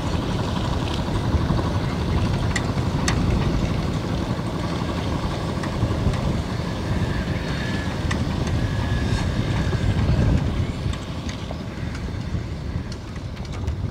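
Fishing boat's inboard diesel engine running steadily with a deep rumble, a little quieter in the last few seconds.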